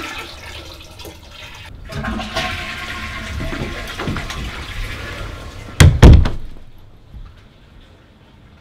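A toilet flushing: a rush of water that swells about two seconds in and dies away, then two heavy thumps in quick succession about six seconds in, the loudest sounds here.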